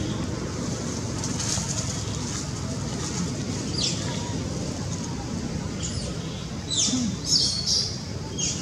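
Small birds chirping in short, high, falling notes, loudest in a quick cluster about seven seconds in, over a steady low rumble of distant road traffic.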